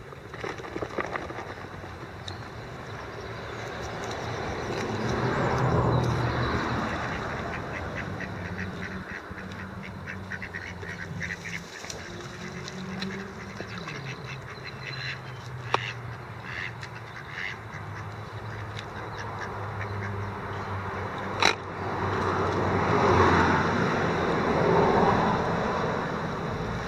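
Mallard ducks quacking in short bursts on a pond. Passing road traffic swells up and fades twice, around the start and near the end, and there is one sharp click a little past two-thirds of the way through.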